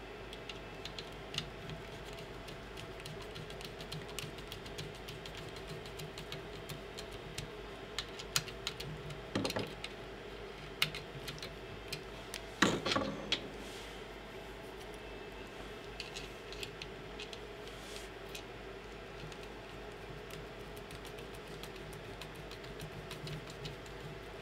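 Small clicks and taps of a screwdriver working screws on a Prusa i3 MK3S extruder's plastic and metal parts, as they are tightened back in. A few louder clatters come around the middle, over a steady low hum.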